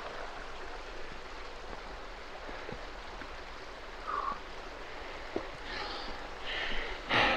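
Small mountain stream trickling and splashing over rocks, a steady rush of running water. A few faint footstep ticks, distant voices from about two-thirds of the way in, and a brief louder rustle near the end.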